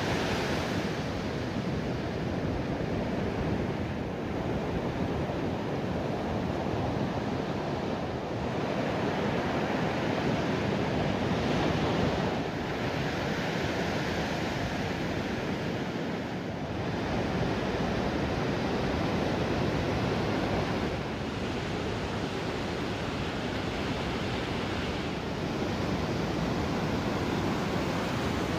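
Ocean surf breaking on a sandy beach: a steady wash of noise that swells and eases every few seconds as the waves come in, with wind buffeting the microphone.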